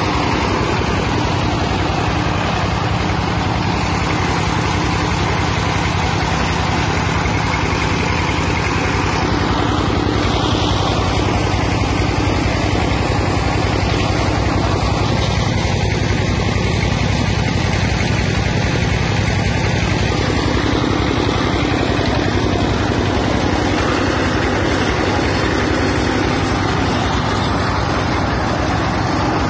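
Peanut-shell grinding mill running at full speed, driven by a small stationary engine, with a steady, loud mechanical din as the shells are ground to powder.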